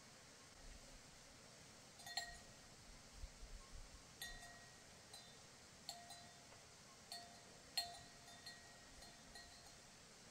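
About a dozen light, scattered clinks of a small hard object. Each strike rings briefly at the same pitch, and the loudest comes near the end.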